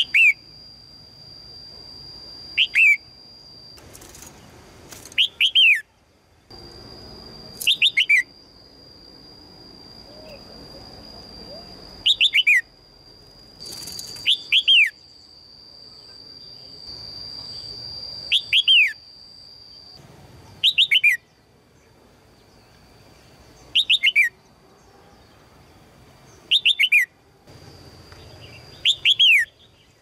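Red-whiskered bulbul giving sharp falling chirps in quick twos and threes, about every two to three seconds: the female's "jiak" call, which the title presents as calling in a strong male.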